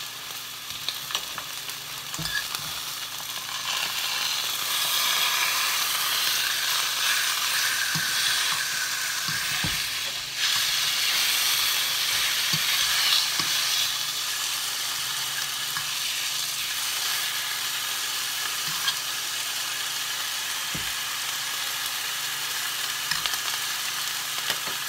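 Chicken frying in a skillet: a steady sizzle, louder for about ten seconds in the first half. A few faint knocks come through.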